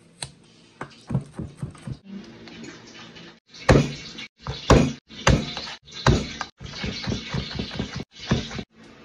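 Chef's knife chopping on a wooden end-grain cutting board: light, spaced taps while slicing shallots, then from about two seconds in louder, quicker chopping of garlic cloves with several hard blows of the blade, broken up by brief gaps.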